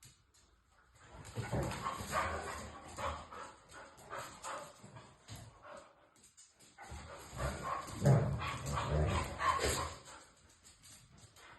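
Huskies vocalizing as they play: yips, whines and short barks in two bouts, starting about a second in and again about seven seconds in, the second louder.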